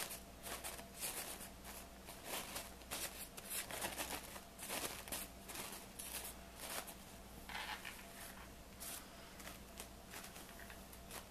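Paper napkins rustling and crinkling as hands pull out and fluff their folded layers, a run of short, irregular scratchy rustles.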